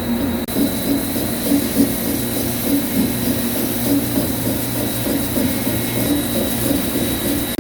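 CNC vertical lathe running: steady machine noise with a constant high whine and a low hum, interrupted by a brief dip about half a second in.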